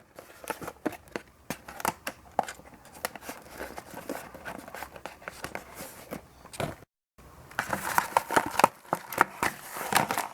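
Cardboard-and-plastic doll box being handled and opened: many small irregular clicks, crinkles and crackles of packaging. The sound cuts out for a moment about seven seconds in, then the crackling resumes, busier.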